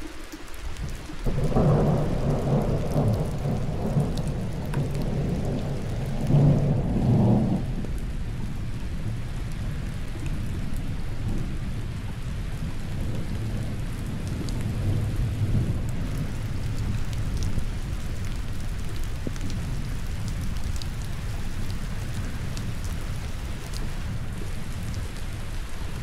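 Thunder rolling over steady rainfall. A loud rumble starts about a second in, swells again about six seconds in, then fades into a long, weaker low rumble while the rain keeps falling.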